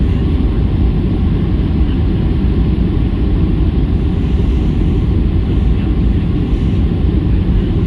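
Steady low rumble inside the cabin of a Boeing 737-800, its CFM56 engines and airframe running evenly as the jet rolls on the ground after landing.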